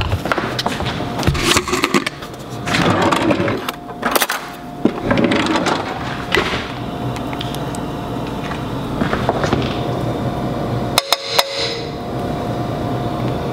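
Kitchen handling noise: a jar of coconut oil knocked about and opened, then a metal spoon scraping and tapping inside a ceramic frying pan as the oil is spread, with a couple of sharp taps about eleven seconds in. A faint steady hum runs underneath.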